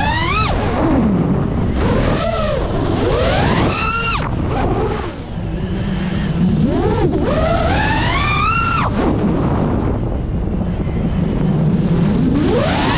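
Brushless motors of a Geprc Mark5 5-inch FPV quadcopter whining, the pitch climbing sharply on several throttle punches and falling away between them, over a steady rush of wind and propeller noise.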